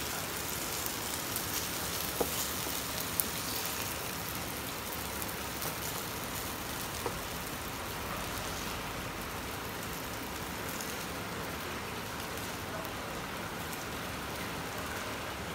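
Oil sizzling steadily in a hot frying pan as the fried chicken breast is taken out, with a few sharp ticks in the first half.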